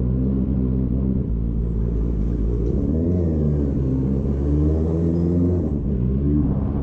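Motorcycle engine running at low road speed under a low rumble, its note rising and falling as the throttle is opened and closed.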